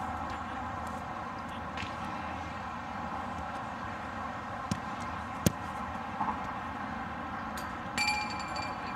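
Steady hiss of outdoor background noise on a camcorder microphone, with a few faint knocks and one sharp thud about five and a half seconds in. A short ringing tone sounds near the end.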